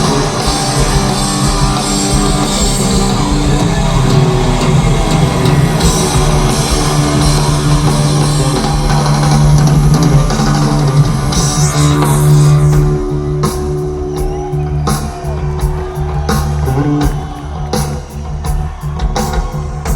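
Live heavy metal band playing an instrumental passage: distorted electric guitar, bass guitar and drum kit. About thirteen seconds in the dense full-band sound thins out to a sparser part with sharp, regular beats.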